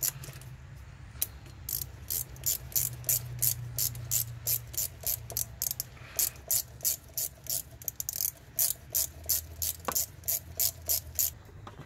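Hand ratchet on a 10 mm socket clicking in quick runs, about three strokes a second with short pauses, as the intake hose clamp at the throttle body is tightened down. A steady low hum runs underneath.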